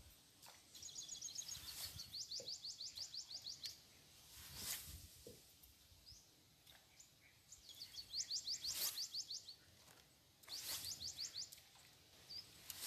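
A bird gives a fast trill of high rising chirps, about ten a second, in three runs of one to three seconds each, over faint background hiss. A few brief knocks or rustles fall between the runs.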